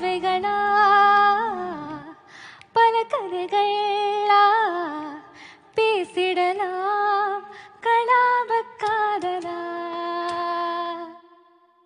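Background music: a woman singing a slow melody in long held notes, phrase by phrase, fading out near the end.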